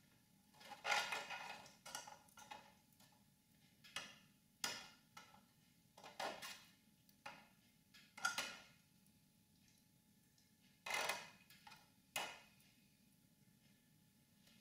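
Red-hot spring-steel knife blade being quenched in oil to harden it: the oil sizzles and crackles in a series of short, irregular bursts as the blade is dipped and moved in the can. Faint overall.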